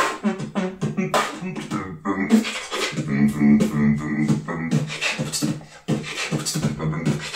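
Solo beatboxing: quick vocal percussion hits made with the mouth, with a low hummed tone held under them at times.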